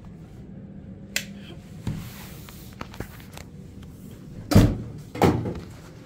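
A few sharp clicks and knocks from handling, then two heavy thumps about two-thirds of a second apart near the end, the loudest sounds here, of the kind a door or panel makes when shut.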